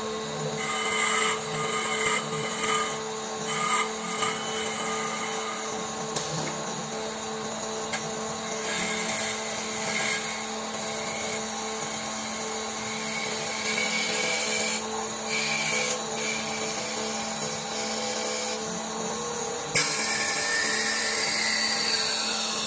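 Small automatic-feeding CNC wood lathe turning a wooden drawer-knob blank: a steady motor hum under the rasp of the cutting tools on the spinning wood, with repeated louder bursts of cutting. About twenty seconds in the cutting grows suddenly louder, and near the end a whine falls in pitch.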